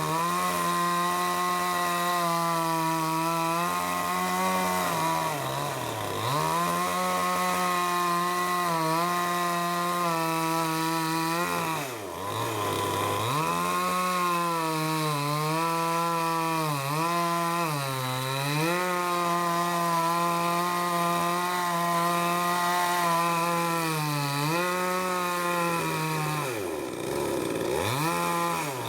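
Chainsaw running at high speed, cutting through the wood of a dead tree. The engine note drops sharply and picks back up several times, about six seconds in, around twelve seconds, a few times in the middle, and near the end.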